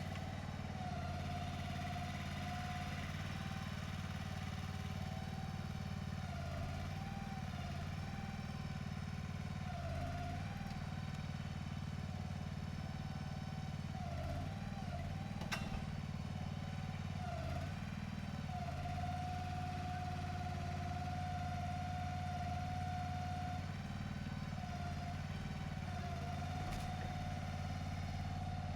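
Engine running steadily at idle, with a wavering whine above it and a single sharp knock about halfway through.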